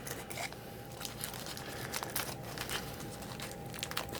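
Small crinkling and clicking handling noises, typical of the plastic wrapper of a SteelStik epoxy putty stick being opened, over a faint steady hum.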